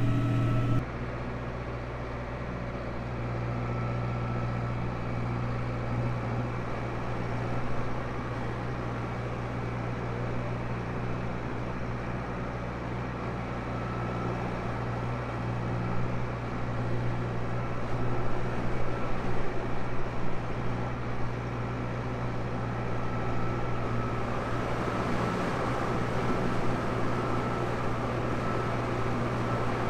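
Tractor engine running steadily under load while pulling a plough, a continuous low drone that grows a little louder and rougher partway through.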